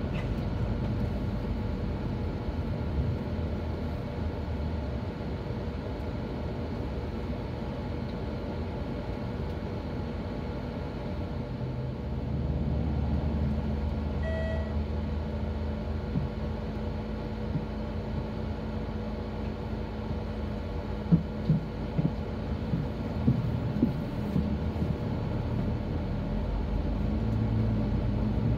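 Volvo 8500 articulated bus under way, heard from inside: steady engine and road noise, with the engine note changing about twelve seconds in. A short electronic beep sounds a little after that, and a few sharp knocks or rattles come near the end.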